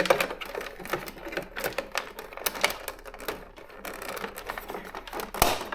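Olivetti Linea 101 electronic typewriter typing: a quick, uneven run of sharp mechanical clicks and strikes.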